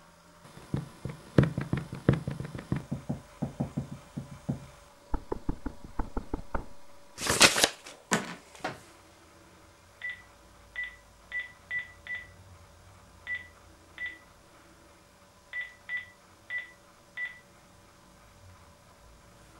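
A mobile phone's keypad beeping eleven times in uneven groups, one short high beep for each key pressed as a phone number is dialled. Before that there is a run of clicks and knocks, with a loud rough noise, the loudest sound here, about seven seconds in.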